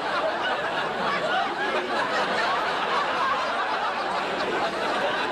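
Studio audience laughing, a dense crowd laugh held at a steady level throughout.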